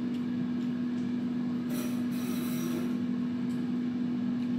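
A steady machine hum with one constant low pitch, unchanging throughout.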